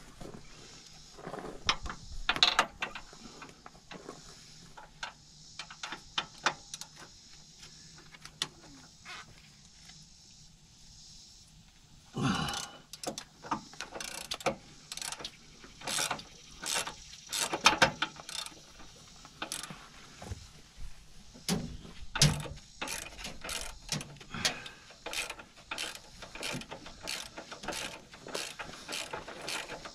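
Hand ratchet wrench clicking as a bolt is worked loose on a car's underside. A few scattered clicks come at first, then quick runs of ratcheting strokes from about twelve seconds in.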